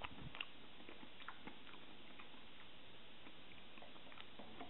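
Soft chewing of raw Pacific saury sashimi: faint, scattered wet mouth clicks over a steady low hiss.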